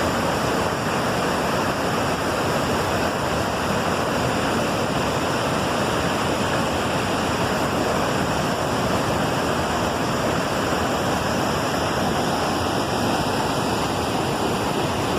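Waterfall: falling water rushing in a loud, steady, unchanging stream of noise.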